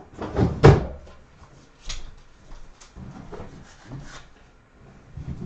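A drawer being pulled open with a loud clatter about half a second in, followed by a few lighter knocks and clicks as things inside are moved about.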